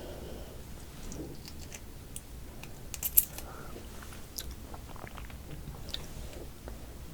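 Close-miked eating of soy sauce marinated raw crab: wet chewing and biting with scattered small clicks, and one sharp, loud crunchy crackle about three seconds in.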